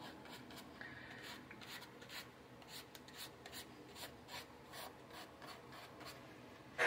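Watercolour brush scrubbing and stroking on watercolour paper: a run of faint, short, scratchy strokes a few tenths of a second apart, as the painter works blooms out of the wet paint.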